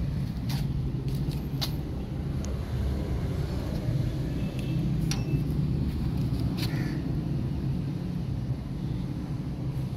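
Steady low outdoor rumble with a few light clicks.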